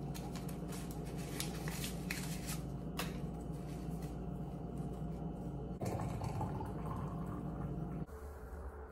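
Glass Chefman electric kettle rumbling with water at the boil, with paper crackling as a tea bag wrapper is torn open in the first few seconds. The rumble drops away about eight seconds in as the kettle is lifted off its base to pour.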